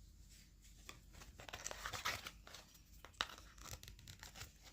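Faint rustling and tearing of packaging being worked open by hand, with scattered small clicks and one sharper click about three seconds in.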